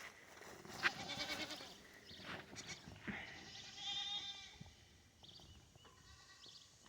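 Goats bleating faintly at a distance, about three wavering calls one after another, the middle one the loudest.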